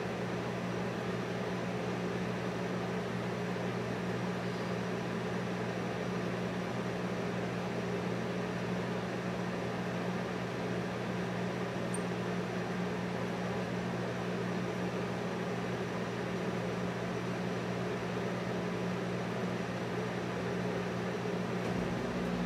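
Steady machine hum: a low drone with an even hiss over it, unchanging throughout.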